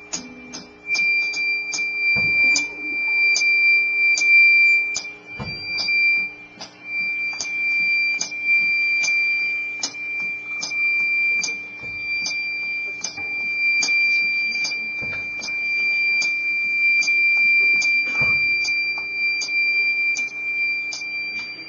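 Blues harmonica played through a handheld microphone: one high note held almost without a break, with short rhythmic pulses on top.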